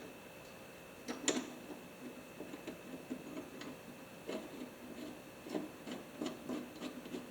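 Irregular light clicks and taps of small metal and plastic parts being handled and refitted in a MIG welder's wire-feed drive compartment, the sharpest knock about a second in.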